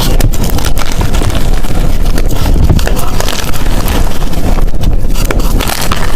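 Blocks of gym chalk being crushed and crumbled by hand close to the microphone: a dense, continuous crunching and crackling.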